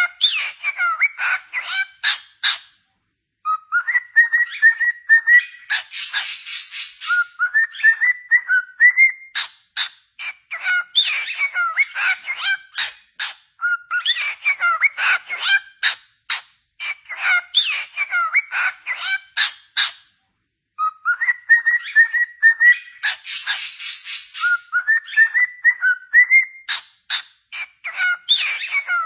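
Cockatiel singing: warbling whistles mixed with rapid clicks and chatter, with a harsh scratchy note twice. The same passage plays again after a short break of silence.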